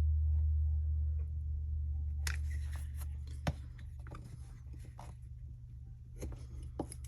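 Small metal and polymer parts of a Glock 43 pistol clicking and scraping as a part is worked into the frame around an aftermarket extended magazine release, with a sharp click about three and a half seconds in. A steady low hum runs underneath.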